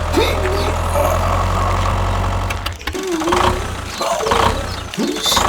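Engine idling with a steady low hum that cuts off about two and a half seconds in, followed by a few short voice-like calls.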